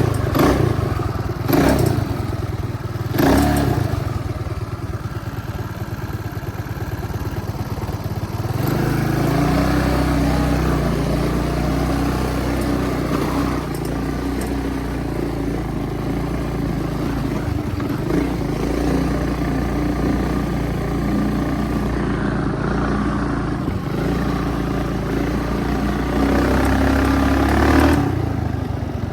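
A small motorbike's engine running during a ride, with a few clattering knocks in the first seconds. The engine note steadies from about nine seconds in and swells again near the end.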